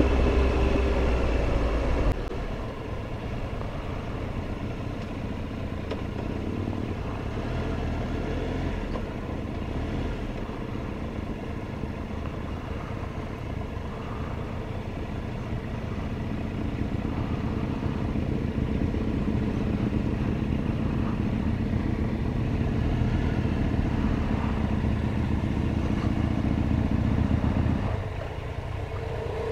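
Triumph Tiger Explorer 1200 motorcycle's three-cylinder engine running steadily on the ride. It gets louder past the middle and drops back near the end.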